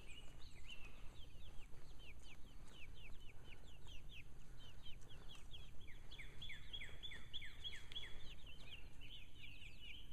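A small flock of young chickens peeping continuously: many short, high notes, each falling in pitch, following one another rapidly throughout.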